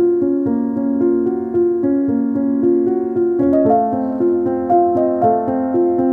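Background piano music: a steady run of evenly struck notes, moving to a higher register a little past halfway.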